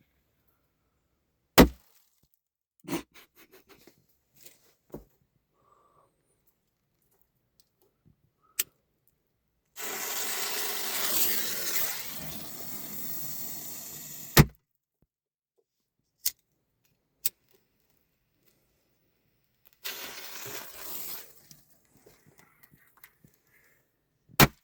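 Firecrackers going off as single sharp bangs, about eight of them spaced irregularly over the stretch. Two stretches of hissing come in between, one about five seconds long ending in a loud bang, one shorter.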